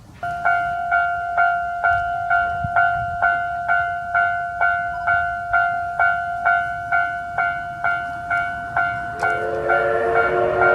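Japanese level-crossing warning bell ringing at about two strikes a second, a steady pitched ding starting suddenly as the crossing is activated for an approaching train. About nine seconds in, lower steady tones join it and the noise of the oncoming train begins to rise.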